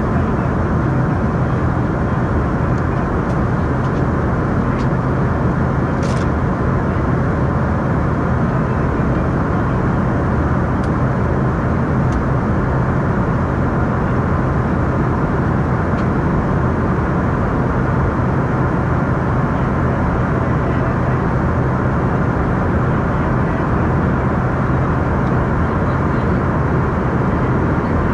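Embraer E145 regional jet in flight: the steady drone of its rear-mounted Rolls-Royce AE 3007 turbofans and the rush of air, a low hum under an even wash of noise. A faint click about six seconds in.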